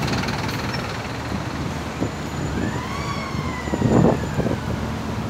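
Highway traffic passing close by, with a truck going past. About three seconds in, a siren rises and then falls away once over the traffic, and a brief loud rumble sounds about four seconds in.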